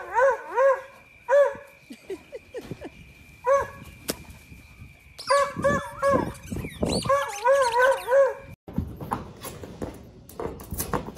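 A dog whining in strings of short, quick rising-and-falling cries, with pauses between the strings. Near the end the cries stop and give way to light clicks and scuffling.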